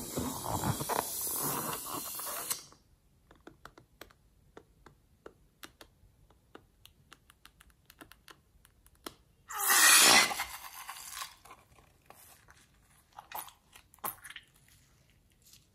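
Slime squeezed out of a cut rubber balloon into a glass bowl: a loud crackling rush for the first two and a half seconds, then small sticky clicks, and a second loud rush about ten seconds in.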